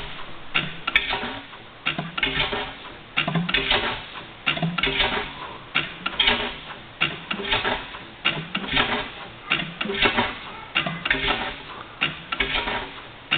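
Reid 6 HP stationary engine running slowly, a clattering beat with a low thump repeating about once a second.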